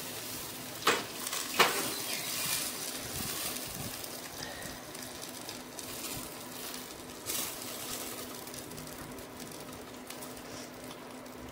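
Mutton leg sizzling on a wire grill over hot charcoal, a steady crackling hiss. Two sharp knocks about a second in as the turned leg is laid back down on the metal grate.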